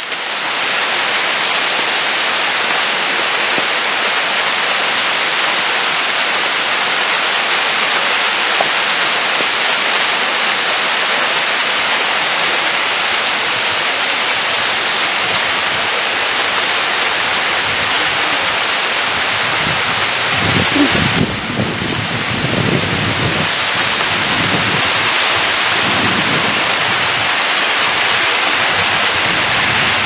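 Waterfall water pouring down a cliff and crashing on rocks, a loud, steady rush, with a few low thumps about twenty seconds in.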